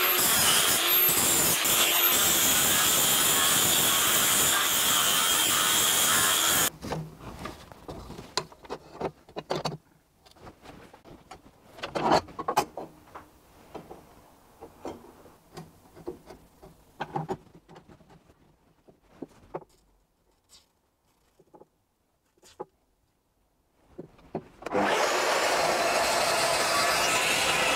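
A power tool cutting steel stock runs loud and steady for about seven seconds, then stops. Scattered knocks and clicks follow, with quiet gaps, and the cutting starts again about three seconds before the end.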